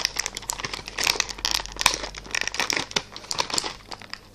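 Clear plastic toy packaging crinkling and crackling irregularly as hands handle it.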